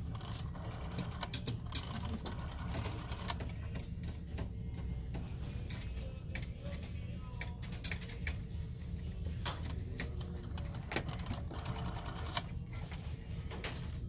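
Rotary dial of an ornate brass telephone being wound round and let spin back, its mechanism clicking rapidly as it returns, over a steady low hum.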